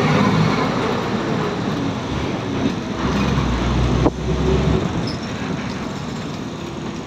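City bus engine running with road noise, heard from inside the bus. There is a single knock about four seconds in, and the low engine hum eases off about a second later.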